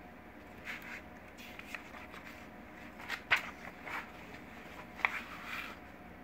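Paper pages of a plastic model kit's instruction booklet being turned and pressed flat by hand: a handful of short rustles and crinkles, the loudest about three seconds in.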